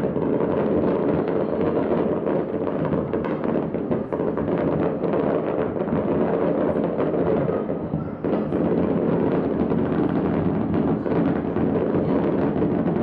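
Grand-finale barrage of aerial firework shells bursting in rapid succession, the cracks and booms running together with no gaps, briefly easing about eight seconds in.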